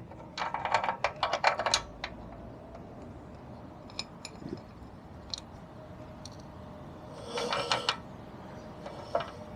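New metal roller chain on a moped rattling and clicking as it is fed by hand over a sprocket: a quick run of clicks in the first two seconds, a few single ticks, then another short run about seven seconds in.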